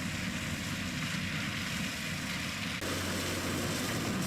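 John Deere 7720 tractor's six-cylinder diesel running steadily under load, pulling a flail mower whose vertically spinning knives shred corn stalks. The sound shifts abruptly a little under three seconds in.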